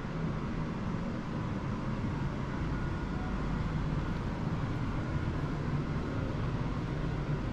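Steady low rumble and hiss of background room noise, with no distinct events.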